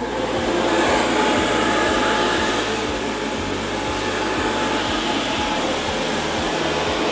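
Intellihot gas tankless water heater running at high fire: a loud, steady rush of its burner and combustion blower. It swells within the first second as the front cover comes off.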